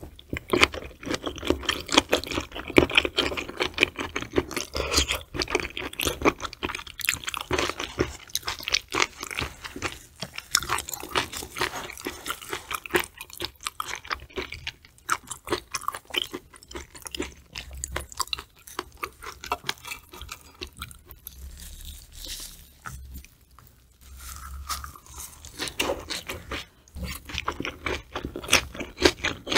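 Close-miked chewing of raw tuna sashimi: dense wet clicks and smacks of mouth and teeth, easing off briefly about three-quarters of the way through.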